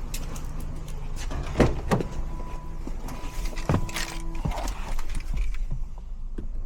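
Car rear brakes squealing: a steady thin tone held for about two seconds over the vehicle's running noise, with a few sharp knocks, the loudest a couple of seconds in.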